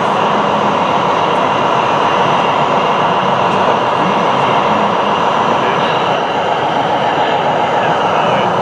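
Electric motors and gearboxes of radio-controlled model trucks running, a steady whine.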